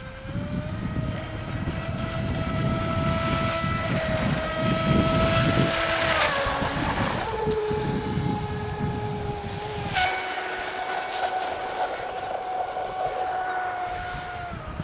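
Brushless electric motor and propeller of a HobbyKing Genesis twin-hull RC offshore boat whining at speed. The pitch drops about six seconds in and steps up again about ten seconds in. A low rumble of wind on the microphone lasts until about ten seconds in.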